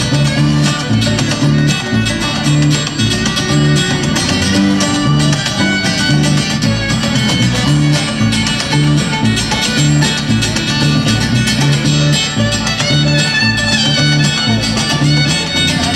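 Acoustic string band playing an instrumental passage with no singing: banjo picking over a steady, evenly pulsing bass line.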